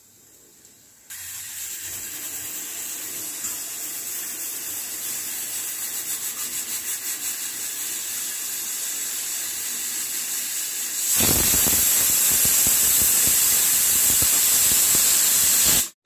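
Aluminium pressure cooker venting steam through its weighted whistle valve: a high hiss starts about a second in and wavers as the weight lifts, then about eleven seconds in it bursts into the full, much louder whistle of escaping steam, stopping abruptly near the end. The sound is the sign that the cooker has come up to pressure, one of the whistles being counted while the horse gram cooks.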